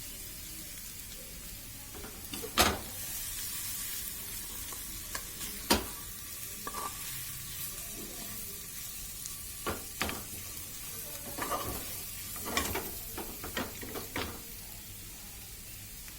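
Chicken pieces dry-frying and sizzling in a pan with very little oil, while a spatula stirs them, scraping and knocking against the pan now and then. The frying is at its last stage, cooking the dish completely dry.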